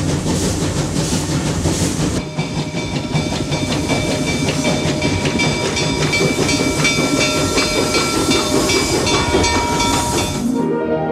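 Small steam locomotive working past: exhaust chuffs and hissing steam with a rhythmic clatter, joined about two seconds in by a steady high tone that holds until the sound cuts off shortly before the end.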